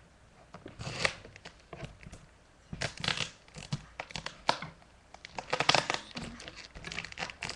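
Packing tape being peeled and ripped off a cardboard box, in several separate short tearing pulls with pauses between them.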